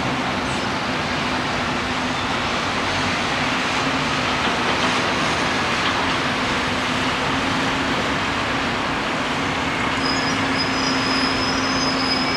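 Steady city traffic noise heard from high above the street, an even wash of engines and tyres with a low steady hum running through it. A thin high squeal comes in near the end.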